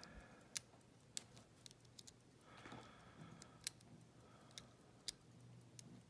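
Faint, irregular metallic clicks of a hook pick working the pin stacks of a six-pin brass ERA euro cylinder lock held under tension, about eight clicks at uneven gaps.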